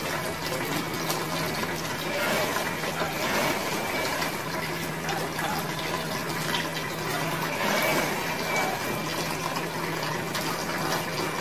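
Water running steadily, as from a tap or hose, with a faint steady hum underneath.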